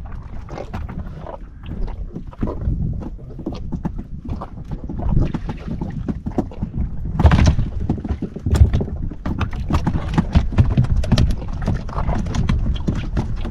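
Wind rumbling on the microphone over a run of irregular knocks and taps around a small fishing boat as a hand line is worked, with the knocking busier and louder from about halfway through.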